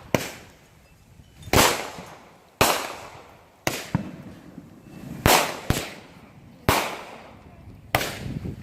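Fireworks going off: about nine sharp bangs at irregular intervals, each followed by a rolling echo that dies away over a second or so.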